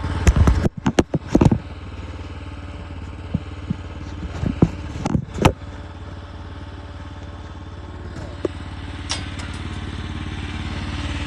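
Mini skid steer's engine running steadily, with several sharp knocks and clatters, most of them in the first second and a half and a couple more about five seconds in.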